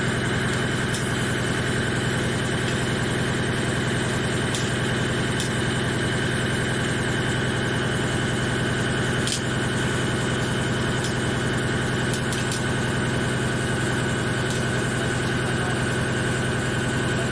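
CNC lathe with a thread-whirling head running while it mills the thread of a motor worm shaft: a steady machine hum with a constant high whine, and a few faint ticks here and there.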